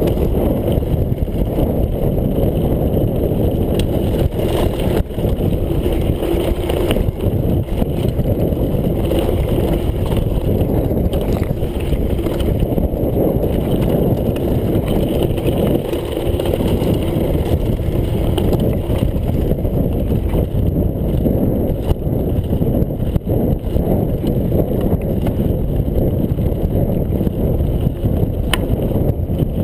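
Mountain bike rolling fast down a loose rocky gravel track: tyres crunching over stones and the frame and parts rattling, with many small knocks. Wind buffets the chest-mounted camera's microphone throughout.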